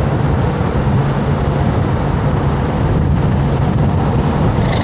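Car driving with a front window rolled down: wind rushing in through the open window over a steady low hum of engine and road noise.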